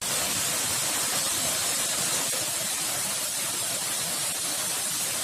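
Steady rushing of a waterfall: an even hiss of falling water with no change in level.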